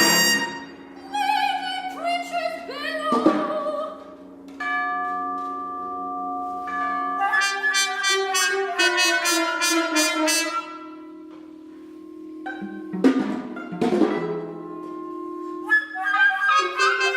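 Contemporary chamber ensemble of winds, brass, strings, piano and percussion playing live. Long held notes are punctuated by sharp percussion strikes, one about three seconds in and two near the end.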